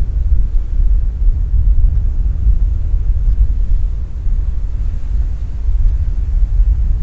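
Wind buffeting the microphone: a loud, low, gusty rumble with little hiss above it.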